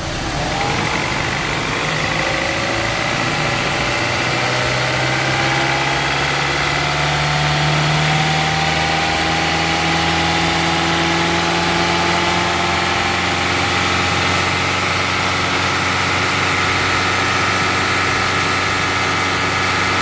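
Fuel-injected car engine brought up from idle to a fast idle of about 2500 rpm by hand at the throttle. It rises quickly at first, climbs a little more a few seconds later, then is held steady. It is running on all cylinders, its misfire from a faulty spark plug wire cured by a new wire.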